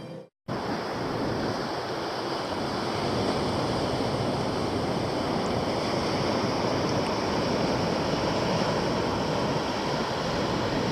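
Steady outdoor rushing noise, even and unbroken, coming in after a brief moment of silence at the very start.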